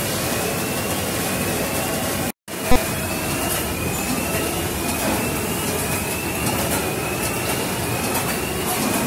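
Ishida 16-head multihead weigher and its packing-line machinery running: a steady mechanical din with a faint short rising tone repeating about once a second. The sound cuts out for a moment about two seconds in, then a single click.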